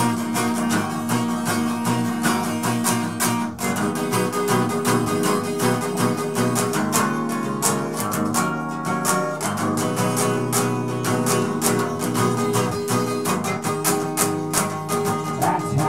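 Acoustic guitar strummed in a steady rhythm, chords ringing under a continuous run of strokes.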